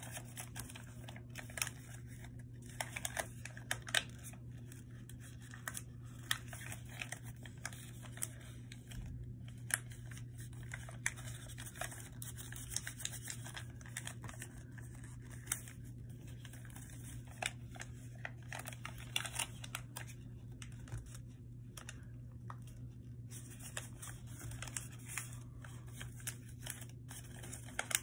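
A sheet of paper being folded and creased by hand: irregular crinkles, rustles and sharp little clicks, over a steady low hum.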